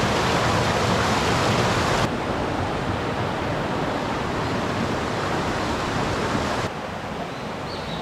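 Stream water rushing over rocks in small rapids: a steady, dense rush that drops in level in two steps, about two seconds in and again near the end.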